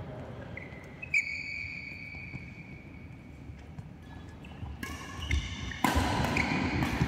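Badminton doubles rally on a synthetic court mat: shoes squeaking on the court surface and sharp racket hits on the shuttlecock. A sharp hit about a second in is followed by a long high squeal, and a cluster of squeaks comes near the end, where it grows louder.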